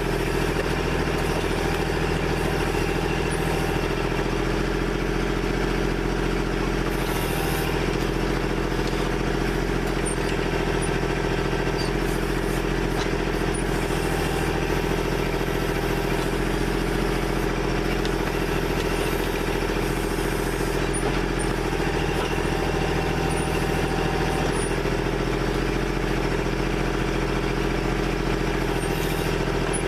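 Kubota backhoe's diesel engine running at a steady speed as the machine digs a trench.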